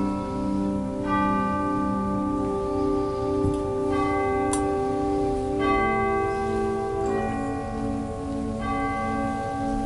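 Church organ playing a slow communion improvisation: sustained chords that change every second or two, the lower notes pulsing with a tremolo.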